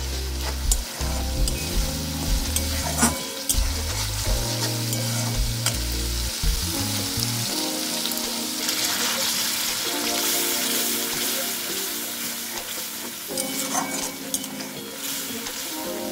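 Masala paste sizzling in hot oil in a metal kadai while a steel spatula stirs and scrapes against the pan with scattered clicks. The sizzle grows louder about halfway through, once spiced curd has gone into the pan. Background music runs underneath.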